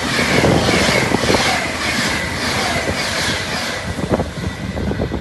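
A train running through the station on the rails, its wheels beating in a regular rhythm about twice a second, with a thin high tone over the top; the sound dies away about four seconds in as it goes past.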